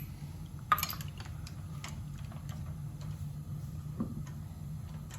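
A few sharp metallic clicks and clinks of tools and brake parts being handled, the loudest about a second in, over a steady low hum.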